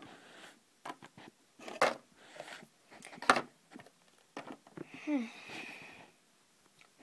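Hard plastic Littlest Pet Shop toy figures and playset pieces being handled and set down on a tabletop: a string of irregular clicks and knocks, two of them louder. About five seconds in comes a short squeak that falls in pitch.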